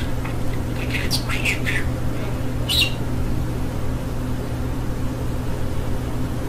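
Budgerigar chattering in its high, rapid talking voice for the first couple of seconds, then one sharp chirp about three seconds in, over a steady low hum.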